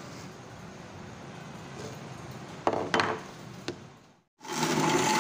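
A few knocks on the table, then near the end an electric blender starts up, a loud steady whirr with a hum that slowly rises, grinding coriander, mint and green chillies into a paste.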